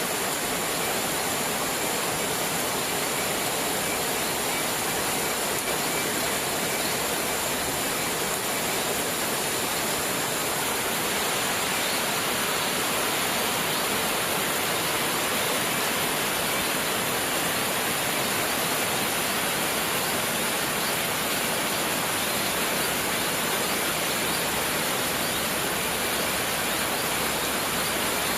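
Steady rain: a dense, even hiss with no separate drops or other events standing out.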